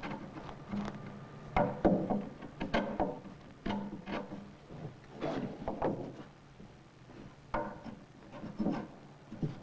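Hand tool work on wood: about a dozen irregular knocks and short strokes, a few with a brief ringing tail, over a steady low hum.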